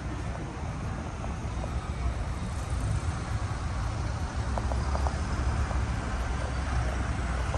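Street traffic: cars and a city bus passing close by, a steady low rumble that grows a little louder in the second half.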